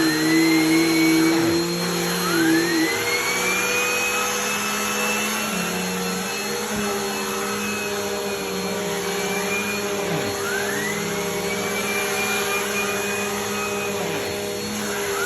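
Vacuum cleaner running with a rotating brush attachment on a mattress: a steady motor hum, with a whine that rises in pitch three times.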